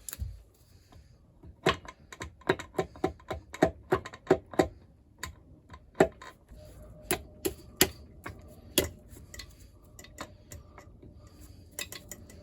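Irregular sharp taps and clicks of hand tools on engine metal while a piston is worked out of the block. About three or four a second at first, then sparser.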